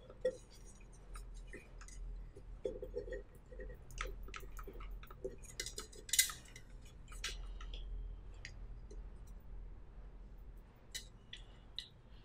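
Faint handling sounds of varnishing: scattered light clicks and soft rubbing as a foam roller on a wire frame is run over a painted tin can held in the hand.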